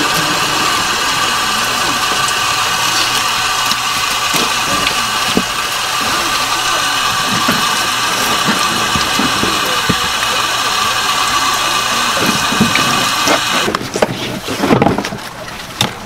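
Steady motor running with a high whine, cutting off abruptly about fourteen seconds in. Faint knife strokes and taps on a plastic cutting board sound underneath.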